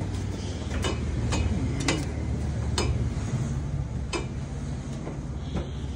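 Footsteps on wooden scaffold boards: a handful of sharp, irregularly spaced knocks over a steady low rumble.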